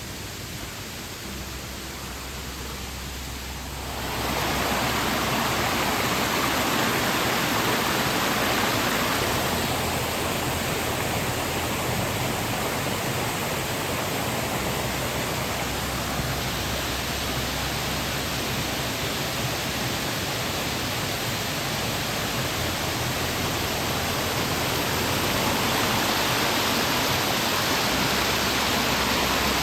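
Waterfall: a steady rush of falling water, growing louder about four seconds in.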